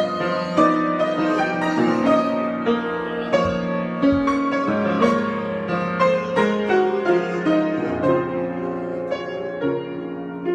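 Improvised solo piano: chords and a melody line, with notes struck several times a second and left to ring. The playing eases off slightly near the end.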